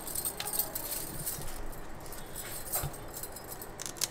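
Glass bangles jingling and clinking on a wrist as the arm moves over the counter, with scattered light kitchen clinks.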